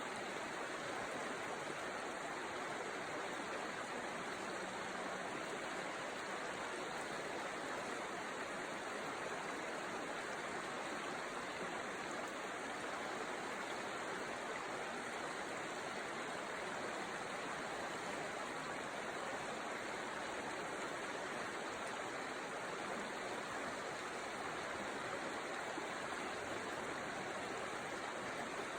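River water rushing steadily, an even unbroken flow.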